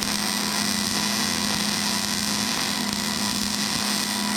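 Wire-feed (MIG) welder arc sizzling steadily through one continuous weld bead, with a low steady hum under it. The arc catches with a few short stutters just before and cuts off sharply about a second after.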